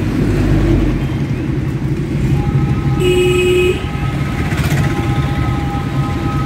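Engine and road noise heard from inside a moving vehicle in town traffic. A short vehicle horn toots about three seconds in, and a steady high hum runs through the second half.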